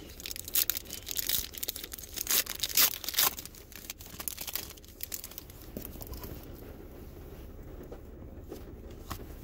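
Foil wrapper of a 2016 Optic football card pack being torn open and crinkled, with a dense run of crackles loudest about two to three seconds in. After that it drops to quieter handling of the cards, with a few light clicks.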